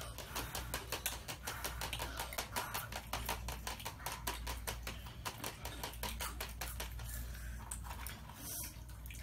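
Hot Cheetos and Takis chips crunching as they are chewed, a quick, uneven run of crisp crunches.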